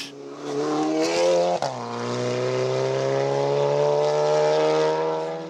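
Race car engine accelerating under load, its pitch climbing. About a second and a half in there is a short break and drop in pitch, then it climbs steadily again and fades near the end.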